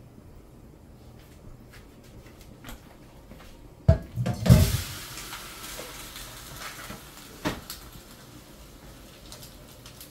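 Cookware clattering: a quick cluster of knocks from a pan and its lid about four seconds in, with a short burst of hissing that fades over a couple of seconds. A single light metal click follows a few seconds later.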